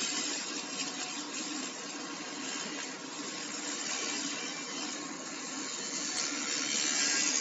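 Fiber laser rust-removal machine running, its pulsed beam scanning over rusty steel bars and stripping the rust: a steady hiss with a low hum underneath.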